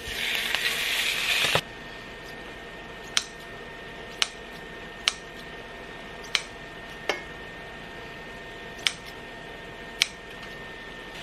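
Beef sizzling loudly as it hits a hot frying pan, cut off abruptly after about a second and a half. Then kitchen scissors snip through the beef over the pan: seven sharp snips, roughly a second apart.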